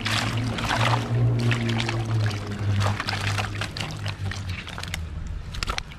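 Water splashing and pouring in repeated bursts over a loud, steady low hum.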